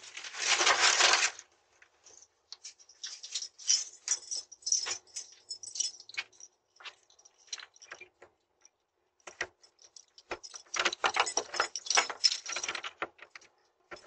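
A bunch of keys jangling and clinking in many light metallic clicks as they are fumbled at a front-door lock, busiest near the end. A loud rustle lasting about a second opens the sound.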